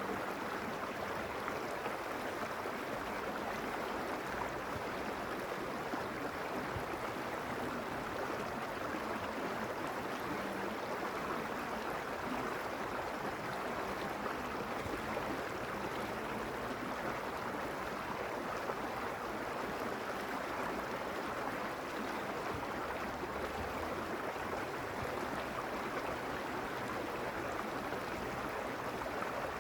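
A mountain stream flowing over rocks: a steady rush of running water with no breaks.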